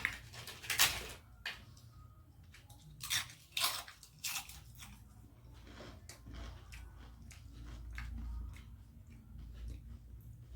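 A person eating close to the microphone: a few loud, crisp crunching bites in the first half, then quieter chewing and small clicking mouth sounds.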